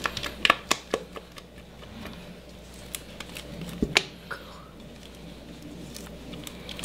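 Spatula scraping and clicking against the inside of a stainless steel mixing bowl as thick cheesecake batter is poured out of it, an irregular scatter of light clicks and scrapes.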